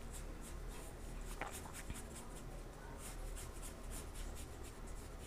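Faint swishing of a paintbrush spreading thick paint across paper in quick repeated strokes.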